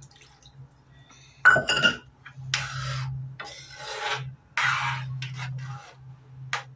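A couple of sharp metal clanks, then a metal ladle scraping against the bottom and sides of an iron kadhai in three long strokes while stirring watery pea gravy.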